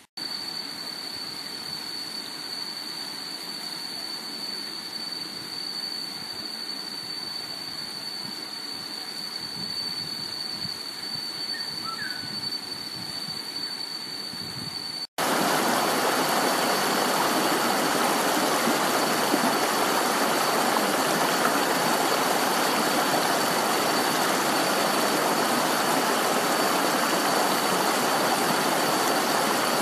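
A soft steady rushing hiss with a thin, steady high-pitched whine over it. About halfway through it cuts to louder, even rushing water, like a stream or waterfall, with the whine still faintly there.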